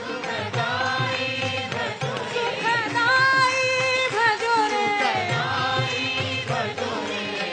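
Devotional bhajan singing: a voice sings a wavering, ornamented melody over steady instrumental accompaniment.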